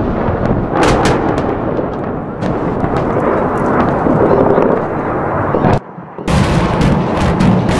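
Explosions from an air bombardment of a city: a continuous heavy rumble of blasts, with many sharp cracks on top. The sound drops out briefly about six seconds in, then the rumbling resumes.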